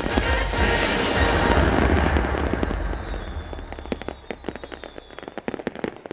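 Fireworks display: a dense run of booming bursts with a heavy low rumble, then, about halfway through, quieter rapid crackling pops of crackle shells.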